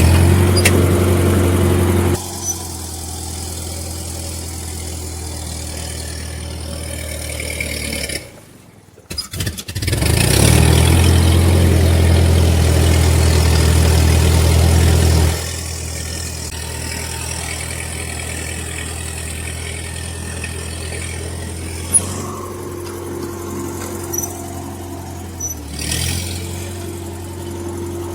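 Car engine running just after a key start: a fast idle for about two seconds, then settling to a steady idle. It drops away briefly about eight seconds in, then runs fast again for about five seconds before settling back to a steady idle.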